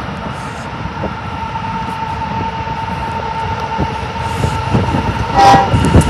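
Union Pacific diesel locomotives hauling a double-stack freight train approach with a steady hum that grows louder, and wind buffets the microphone. Near the end the locomotive horn sounds a short blast.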